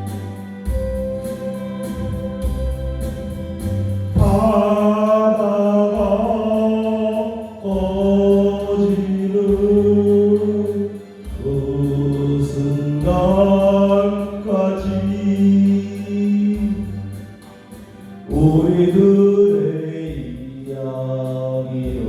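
Music: a singing voice holding long notes, with no words made out, over a low pulsing accompaniment.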